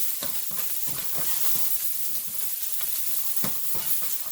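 Garlic and yellow onion sizzling in hot oil, with frequent short clicks and scrapes of a utensil stirring them in the pan.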